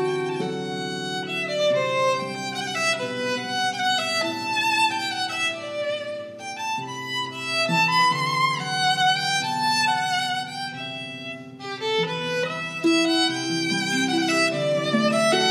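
Celtic harp being played solo: a plucked melody ringing over sustained bass notes, the music softening briefly about two-thirds of the way through.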